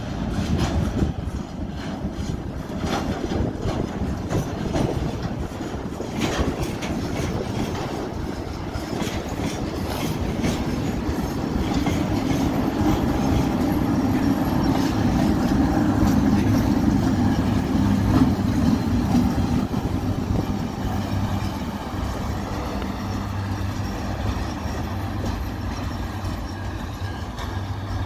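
ChME3M diesel shunting locomotive moving a train of tank cars past at low speed: wheels clicking over the rail joints, then the engine's steady hum swells as the locomotive goes by, loudest about two-thirds of the way through.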